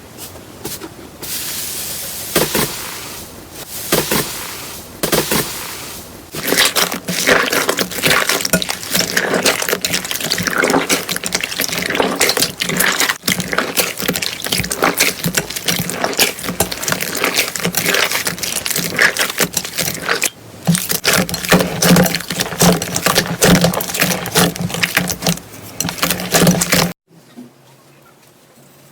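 Slime being squished and pressed by hand: a dense run of wet clicks, pops and crackles that cuts off suddenly about two seconds before the end.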